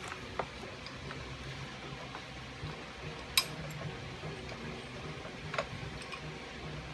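Sharp small metal clicks and taps from power steering pump parts being handled and fitted by hand, three distinct ones with the loudest near the middle, over a steady low hum.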